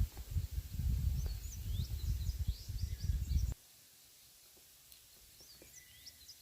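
Wind buffeting the microphone with a gusty low rumble, which stops suddenly about three and a half seconds in. A songbird chirps repeatedly in short high notes throughout.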